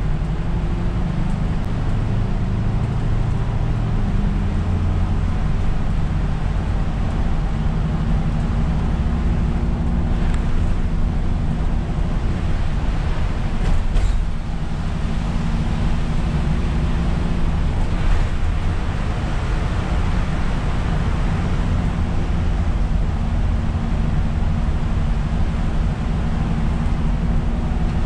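Isuzu Erga route bus driving on a rain-soaked road, heard from inside the cab: a steady diesel engine hum whose pitch steps up and down with engine speed, over the hiss of tyres on wet pavement.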